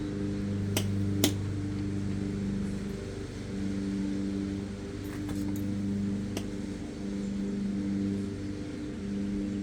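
Steady low machine hum, with a few light metallic clicks as a bicycle shifter and its cable and adjuster are handled: two sharper clicks about a second in, fainter ones around the middle.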